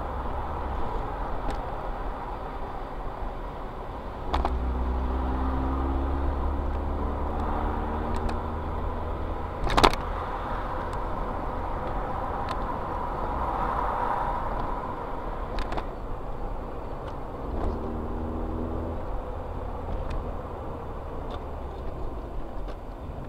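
A car's engine and tyre noise heard from inside while driving in traffic, with the engine note climbing as the car pulls away about four seconds in and again briefly later on. One sharp knock stands out near the middle.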